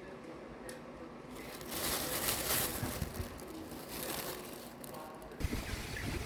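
Storm wind and rain rushing loudly from about a second and a half in, then a sudden switch about five seconds in to low buffeting of wind on the microphone.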